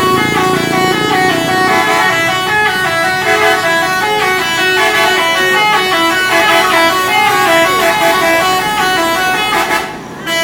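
Indonesian bus 'telolet' horn, a multi-tone air horn playing a quick melody whose notes change several times a second. It is loud throughout and breaks off briefly near the end before starting again.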